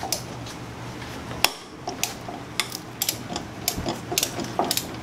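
Metal hand tools clinking and tapping against bolts and brackets in a car's engine bay as a socket is worked onto a bolt. The clicks are sharp and irregular, with the loudest about a second and a half in.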